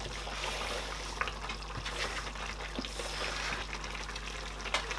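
Pot of egusi pepper soup simmering on the stove, a steady bubbling hiss, with a few light taps as chopped vegetables are tipped in off a plastic cutting board and stirred with a wooden spoon.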